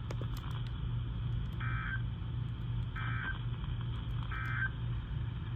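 Three short bursts of EAS/SAME digital data tones from a NOAA Weather Radio broadcast, about a second apart: the end-of-message code that closes the severe thunderstorm warning. A steady low hum runs underneath.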